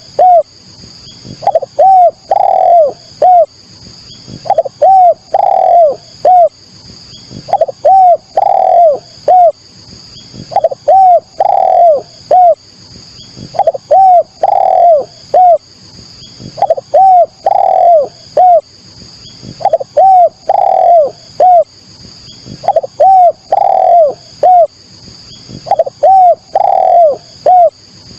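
Spotted dove (derkuku, tekukur) cooing its three-note phrase, a short coo, a longer louder coo, then a short coo, repeated about every three seconds.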